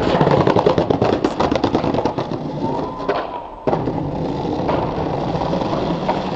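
Skateboard wheels rolling over concrete paving, with a rapid clatter of small clicks from the joints and grit under the wheels. About three and a half seconds in the sound jumps suddenly to a steady rolling rumble.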